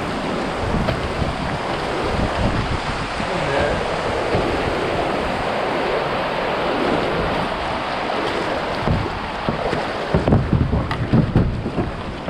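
Whitewater river rushing steadily, with wind buffeting the microphone; a run of low thumps comes near the end.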